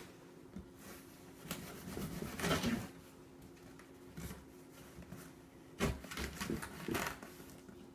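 Rustling and knocks of a cardboard box and its contents being handled and opened, with a couple of louder knocks about a third and three-quarters of the way through, over a faint steady hum.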